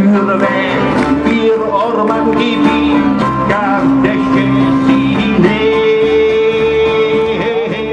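Live band music with singing, amplified through a stage sound system, with long held notes over a steady beat.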